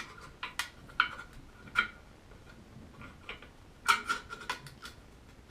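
Metal parts of a door latch installation tool clicking and knocking together as a piece is slid into place in a metal door. The knocks are irregular, several ring briefly, and a quick cluster comes about four seconds in.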